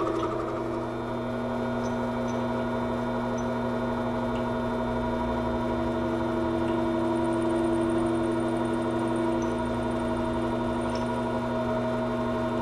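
Metal lathe running steadily with an even hum, a few faint clicks over it.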